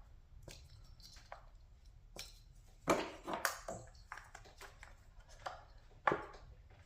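Scattered clicks and knocks of the ignition coil-pack wiring harness connectors being unclipped and pulled off, a quick cluster of several about three seconds in and one sharp click about six seconds in.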